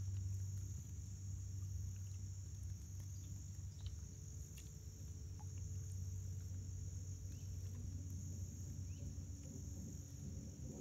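Steady chorus of crickets or other night insects, an even high trill with a faint pulsing layer above it, over a low steady hum.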